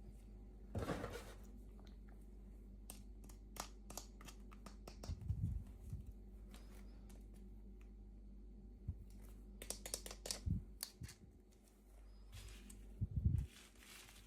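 Toy packaging being unwrapped and handled by hand: brief plastic crinkling and tearing, scattered light clicks and taps, and a few soft thumps, over a faint steady hum.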